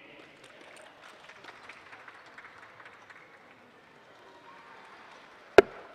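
A single sharp thud of a steel-tip dart striking a Winmau Blade 6 bristle dartboard about five and a half seconds in, over the faint murmur of a large hall.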